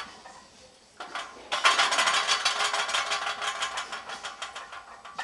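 Iron plates on a loaded 315 lb barbell rattling and clinking against the bar and each other as the lifter moves under it in a squat rack. A single knock comes about a second in, then a rapid, loud metallic rattle starts about a second and a half in and fades toward the end.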